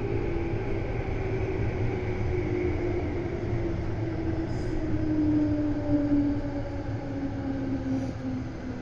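Meitetsu 200 series electric train running, heard from on board: a low rumble of wheels on track under the whine of the traction motors, which slowly falls in pitch as the train slows.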